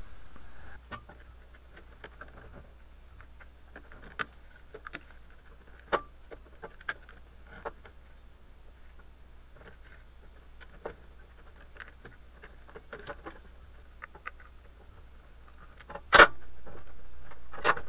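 Scattered light clicks and taps from a soldering iron tip and fingers working on a printed circuit board while a thermistor is desoldered, over a steady low hum. There is a sharper click about sixteen seconds in, after which the background noise gets louder.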